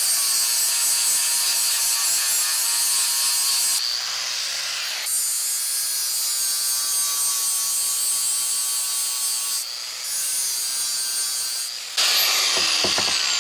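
Hand grinder grinding a thick weld bead off a bench vise: a loud, steady, high-pitched grinding of abrasive on metal. It eases off twice, about four seconds in and again near ten seconds.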